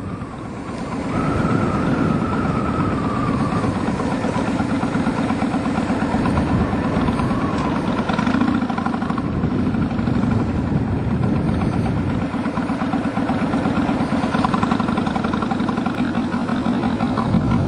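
2007 Kawasaki Vulcan Mean Streak 1600 SE's V-twin engine running under way, its exhaust pulsing steadily. It gets louder about a second in as the bike picks up speed.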